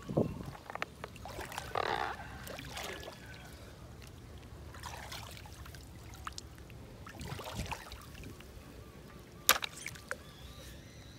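Shallow lake water splashing and sloshing as hands pick snails out of it, with scattered small knocks of snail shells and one sharper click near the end.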